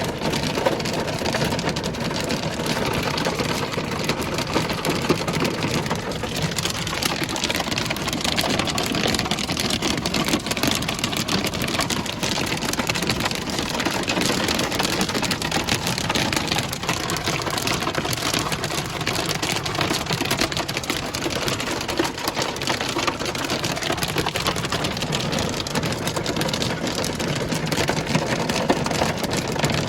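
Heavy hail pelting down: a dense, steady clatter of countless hailstones striking a hard surface.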